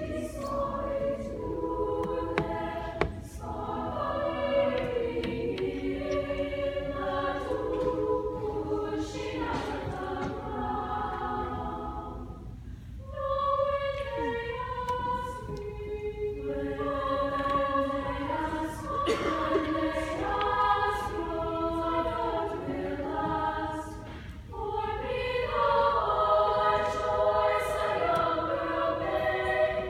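Girls' choir singing a piece in several-part harmony, in phrases with short breaks near the middle and again later on.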